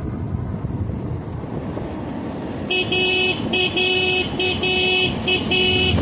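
Vehicle horn honked in several short blasts, starting a little under halfway through, over the rumble and wind noise of a vehicle driving on a winding road.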